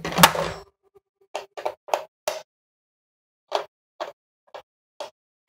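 Handling noise from a plastic Nerf Elite 2.0 Turbine blaster: a clatter as it is taken up, then two runs of four short knocks and clicks as a small screwdriver is worked at the screw of its battery cover.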